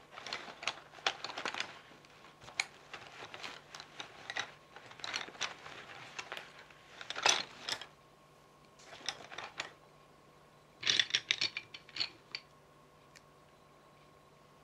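Pencils rattling and clicking together as a hand rummages through a pencil case. The clicks come in irregular clusters with short pauses, and a dense flurry comes about eleven seconds in.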